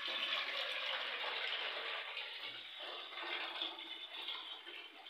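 Tap water running into a pan as it fills, loudest for the first couple of seconds and then easing off.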